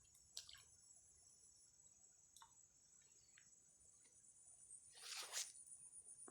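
Faint ambience: a steady high-pitched insect drone with a few small clicks, and a brief louder rush of noise about five seconds in.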